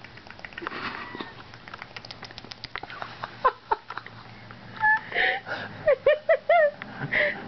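A person making funny mouth and cheek noises: a run of wet clicks and smacks, breathy puffs of air, then four short squeaky sounds in quick succession that bend up and down near the end.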